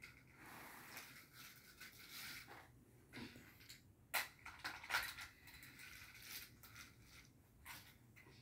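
Faint handling of plastic toy race-track pieces and toy cars: scattered soft clicks and rustles, with two sharper clicks about four and five seconds in.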